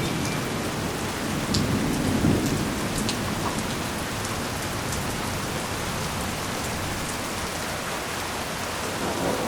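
Heavy rain falling steadily, with sharp ticks of single drops striking close by. About two seconds in, a low swell of wind rises and fades.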